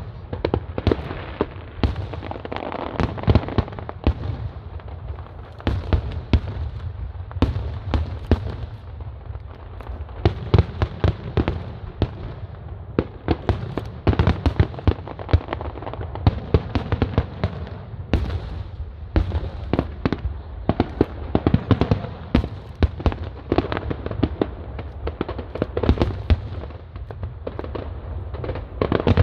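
Aerial fireworks going off in rapid, unbroken succession: many sharp bangs and crackles over a steady low rumble.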